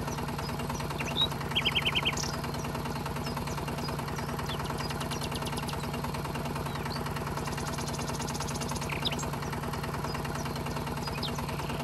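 Small electric motor of a home-made miniature tractor running at a steady speed with an even, fast-fluttering hum. A bird chirps a few quick notes about a second in.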